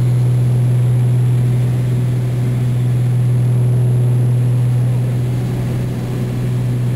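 Small propeller airliner's engines and propellers heard from inside the cabin in flight: a loud, steady low drone.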